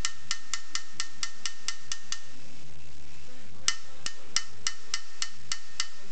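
Small hammer tapping a steel chasing punch on a silver strip: light, sharp metallic taps about four a second with a faint ring, in two runs with a pause of about a second and a half between them.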